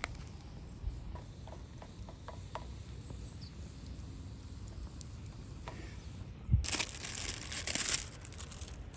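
Scattered light clicks and ticks, then a loud burst of crinkling noise lasting about a second and a half, near the end.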